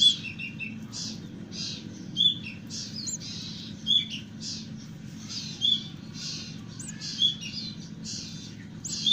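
Young kadasi birds calling: a steady run of high chirps about twice a second, with a louder, sharper call about every second and a half, over a low steady hum.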